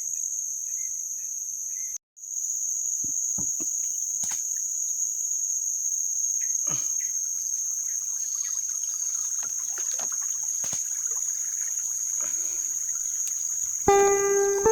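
Steady, high-pitched chorus of insects, with a few faint knocks and a brief break about two seconds in. Guitar music comes in near the end.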